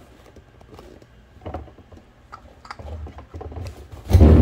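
Small plastic clicks and rattles of a Lego Technic model being handled and turned around on a table, with a short, louder burst near the end.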